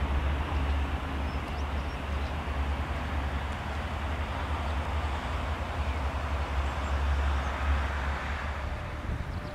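Diesel-electric locomotive hauling a passenger train away, a steady low engine rumble with the running noise of the coaches on the rails, the rumble fading near the end.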